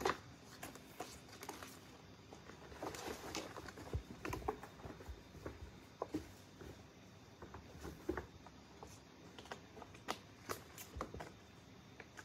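Kittens scampering and wrestling on and around a cardboard scratcher ramp: irregular soft thumps, paw patter and short scratchy rustles of claws on the cardboard, busiest a few seconds in.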